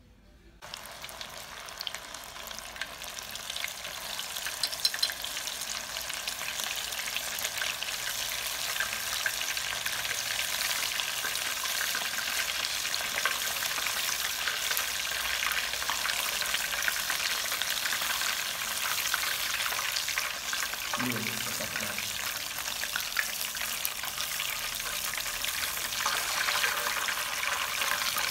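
Hot oil sizzling and crackling steadily as breaded sticks deep-fry in a steel pot. It starts suddenly about a second in.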